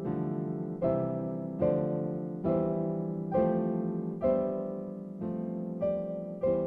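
Background music: slow piano chords struck about once a second, each left to die away.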